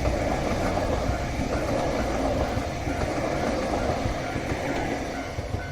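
A freight train rolling past: a steady rumble of wheels on the rails that fades gradually near the end.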